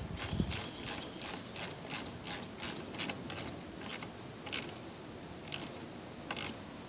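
Ratchet wrench clicking as the positive battery terminal nut is tightened, about three clicks a second, then slowing to a few scattered clicks as the nut snugs down.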